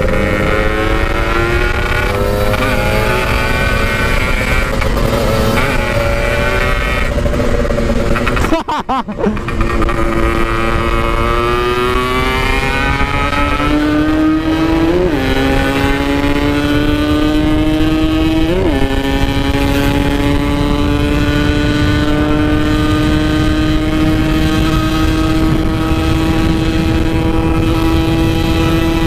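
Yamaha RX-King two-stroke single-cylinder engine with a 'standart belek' aftermarket exhaust, ridden on the road. The throttle shuts briefly about a third of the way in; then the engine revs up through the gears with two upshifts and settles into a steady cruise, with wind rumble on the microphone.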